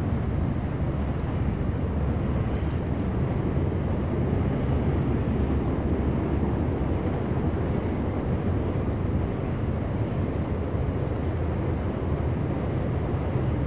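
Freight train diesel locomotives heard across open water, a steady low rumble with no change in loudness.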